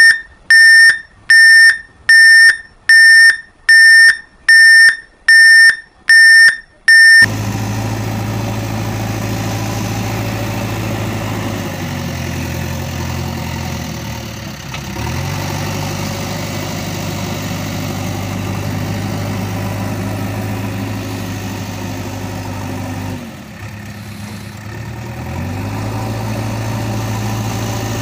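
A loud, piercing electronic beep repeated about nine times, roughly every 0.8 seconds, stopping about seven seconds in. It gives way to a steady diesel-type engine running at idle, whose pitch drops away and picks up again twice.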